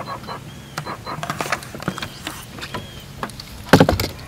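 Scattered knocks and clicks of fishing gear being handled on a boat deck, with one heavy thump a little under four seconds in, over a low steady hum.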